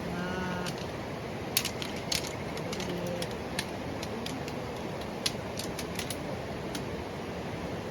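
Irregular light clicks and taps of camping gear being handled while a tarp is pitched, over a steady background hiss, with a brief voice sound at the start.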